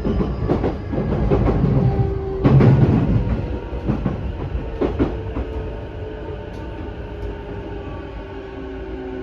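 Running sound inside an E233 series 2000-subseries electric train with a Mitsubishi IGBT inverter: the wheels knock over rail joints several times in the first five seconds, then a steady, slowly falling motor whine as the train slows toward the terminus.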